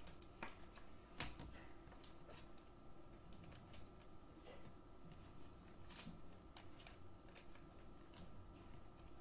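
Faint scattered clicks and taps of trading cards being handled, picked up and set down on a tabletop, with a few sharper clicks about a second in and near the end.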